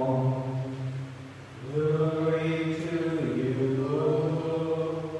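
A man's voice chanting slowly through a microphone, in long held notes, with a short break about a second in and a step up in pitch about three seconds in.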